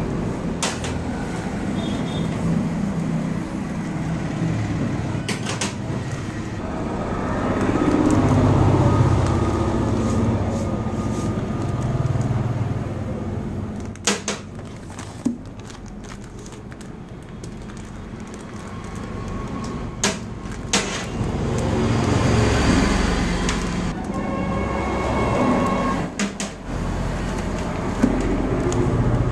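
Street background of passing road traffic: a steady low rumble that swells and fades. Over it come a dozen or so sharp clicks and knocks, and a crinkle of plastic packaging being handled, the loudest patch about two-thirds of the way in.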